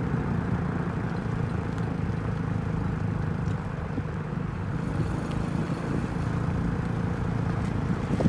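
A 2005 Mini Cooper S JCW on the move: steady road and engine noise with a faint squeak, which the owner takes for the brakes. The squeak grows with road speed and stops when the brakes are pressed.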